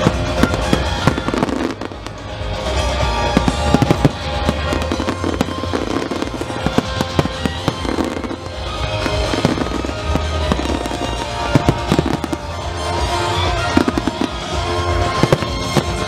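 Aerial fireworks display: shells and comets bursting in many irregular bangs and crackles, over the music played with the show.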